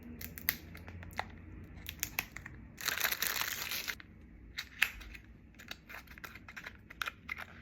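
Product packaging for lip liners being opened and handled by hand: scattered light clicks and taps, with a dense second-long burst of crinkling about three seconds in.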